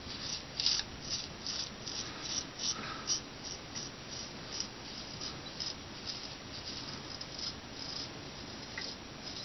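Straight razor scraping through long beard stubble on the neck in short strokes, a dry rasp about two to three times a second, fainter toward the end.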